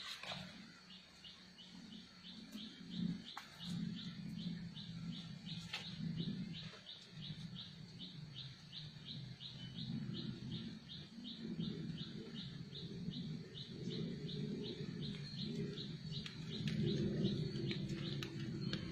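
A high chirp from a small animal, repeated evenly about three times a second, over a low rumble that grows louder near the end.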